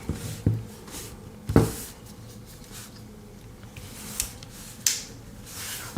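Small clicks and light handling noise of pocketknife tools being worked by hand, with one sharper click about one and a half seconds in and a few fainter ones later.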